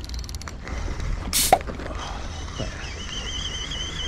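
A spinning reel being cranked, its gears giving a thin, wavering whine from about two seconds in, over steady wind rumble on the microphone. A short burst of noise comes about a second and a half in.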